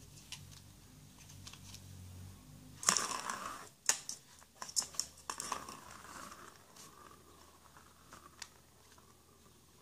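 Clicks and knocks on a plastic circle-track cat toy as a kitten paws at it, with the plastic ball rolling around the track. The clicks bunch up between about three and six seconds in and thin out after.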